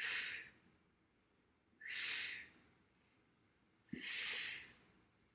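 Three forceful exhalations by a woman, each a short breathy hiss about two seconds apart, paced with the toe taps of a Pilates exercise on a foam roller.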